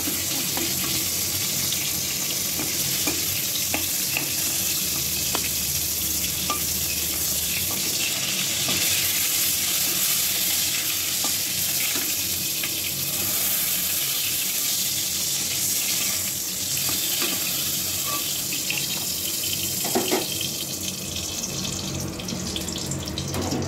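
Pointed gourds (potol) sizzling steadily in hot oil in a metal kadai as they are lifted out. A flat metal spatula makes occasional light clicks and scrapes against the pan, one a little louder near the end.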